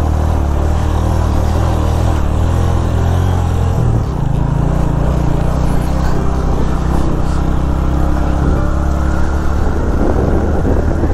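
Suzuki GS150 motorcycle's single-cylinder engine running steadily while the bike is ridden over a stony dirt track. The engine note shifts about four seconds in.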